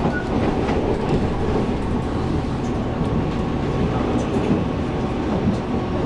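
Taiwan Railways EMU700 electric multiple unit running along the line, heard from inside a passenger car: a steady rumble of wheels and running gear with a few faint clicks.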